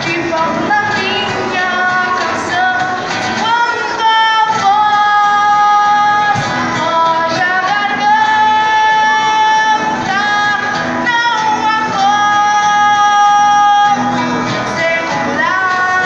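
A woman singing into a microphone over a PA system, accompanied by acoustic guitar; she holds several long notes.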